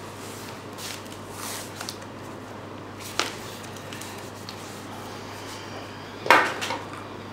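Quiet room with faint handling noises on a table: a soft click about three seconds in and a brief louder rasp just after six seconds, over a low steady hum.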